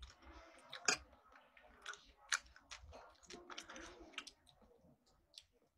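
Faint close-up eating sounds: a person chewing with small wet mouth clicks and lip smacks, irregular and scattered, the sharpest about a second in and again near two and a half seconds.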